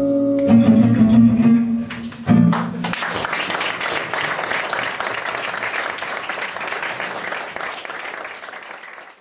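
A gypsy swing band with acoustic guitars and double bass ends a tune on its final held chords. From about three seconds in, an audience applauds, and the applause fades out near the end.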